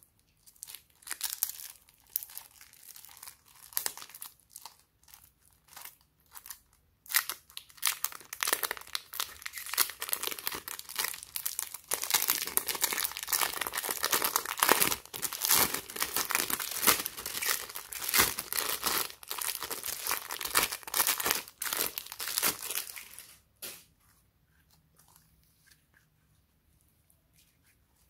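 Glossy slime being squished and worked by hand, giving crackling clicks that come sparsely at first, thicken about seven seconds in, and stop abruptly a few seconds before the end.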